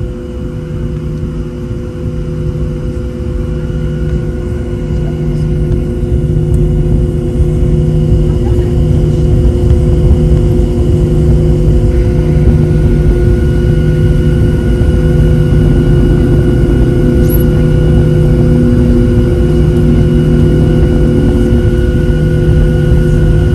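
Cabin noise of a Boeing 737 taxiing: jet engines running at taxi power as a steady low rumble with a steady whine, growing louder over the first several seconds and then holding, with a low throb pulsing about once a second.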